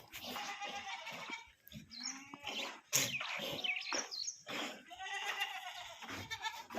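Goats bleating in long, wavering calls, one near the start and another about five seconds in, while small birds chirp high above them. A sharp knock comes about three seconds in.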